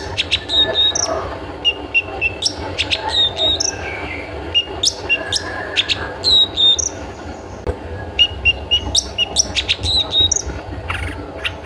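Long-tailed shrike (cendet) calling its 'toet toet' notes: short high notes repeated in quick runs, mixed with sharp harsh clicks, over a steady low hum.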